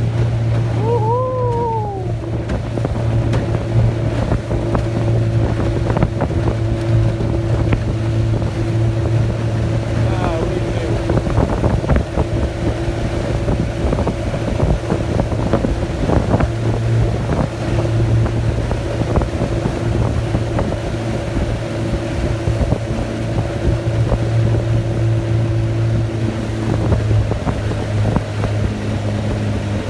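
Yamaha 30 hp two-stroke outboard running steadily at cruising speed, driving an aluminium boat, with a steady hum and the rush of water and wind over it.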